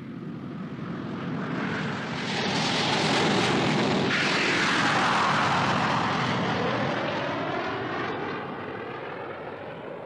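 Jet aircraft flying past: a roar that builds, is loudest around the middle with a sweeping, shifting tone, then fades away.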